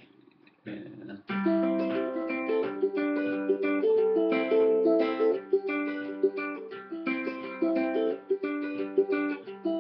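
Low-G tuned ukulele fingerpicked at a brisk tempo: a steady stream of single plucked notes in a repeating thumb-and-finger pattern over a sustained low bass note, starting about a second in after a short pause.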